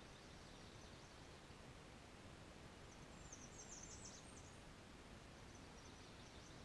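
Faint, high-pitched calls of a small bird: soft chirps near the start and end, and a quick run of thin notes about three to four seconds in, over a steady low background hiss.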